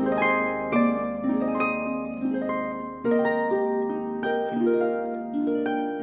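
Background instrumental music: a run of plucked string notes over a held low note.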